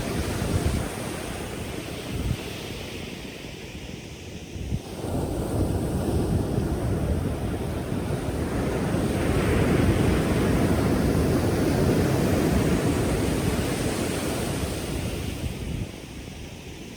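Ocean waves breaking as surf: a rushing wash that eases a few seconds in, swells again into a long loud surge around the middle, and fades near the end.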